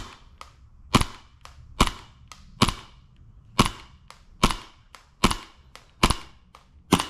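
Gas blowback airsoft pistol fired in semi-automatic, about nine single shots a little under a second apart, each a sharp pop with the snap of the slide cycling.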